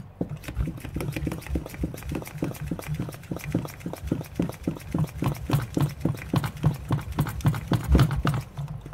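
MSR fuel bottle's hand pump being worked, the plunger stroked in and out to pressurise the bottle before priming the stove: a quick, steady run of clicks and knocks, several a second.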